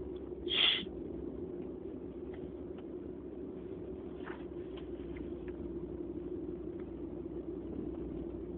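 Steady low background rumble, with a person's short sniff about half a second in and a fainter sniff around four seconds in.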